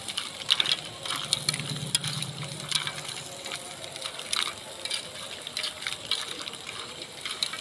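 Green mussel shells clinking and clattering as they are handled in a cooking pot: irregular sharp clicks every fraction of a second.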